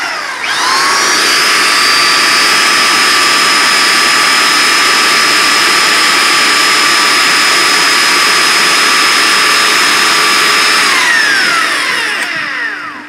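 Electric angle grinder spinning up to a steady high whine while it grinds a cast lead fishing sinker, then winding down with a falling pitch near the end.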